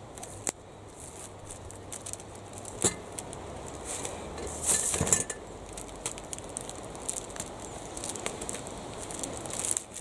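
Newspaper sheets rustling and crackling as they are smoothed and taped with parcel tape, with a few sharp knocks on the wooden table as the old iron weight is moved, the loudest about five seconds in.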